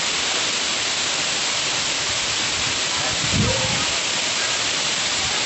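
Steady rushing of a waterfall and its stream, with one brief low thump a little over three seconds in.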